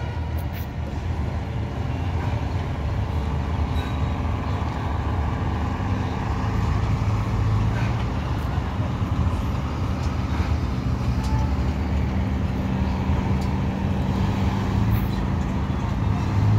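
Bus engines running as the buses pull slowly past, a steady low rumble. It swells as one bus passes around the middle and again as another passes near the end.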